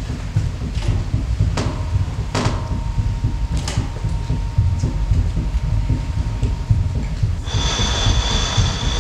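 Experimental electronic music made from amplified, processed body sounds. A heavy low rumble runs throughout, with a few sharp clicks early on. A steady mid-pitched tone holds through the middle, and near the end several high, steady whistling tones enter together.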